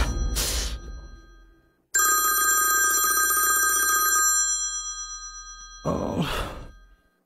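A phone ringing with a steady high electronic tone for about two seconds, starting and cutting off suddenly. Before it, a dramatic music sting fades out, and near the end comes a short swish that falls in pitch.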